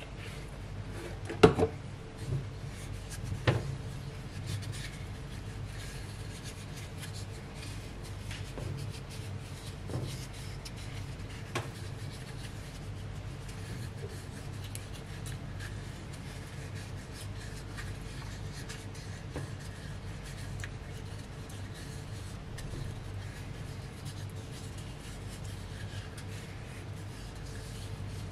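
Oily hands rubbing and turning a small carved birch-wood cup, rubbing rapeseed oil into the wood, with soft slick rubbing noises over a low steady hum. A sharp knock comes about a second and a half in and another about two seconds later.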